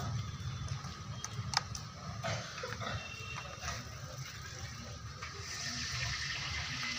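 A few small clicks as a metal crocodile clip is fastened onto a lead-acid battery terminal, the clearest about a second and a half in, over a steady low hum.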